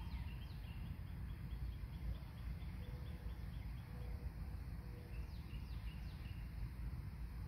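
Outdoor ambience with a steady low rumble and birds chirping. A rapid, even run of short high notes lasts about the first three and a half seconds, and a few short downward-sliding chirps come near the start and again about five seconds in.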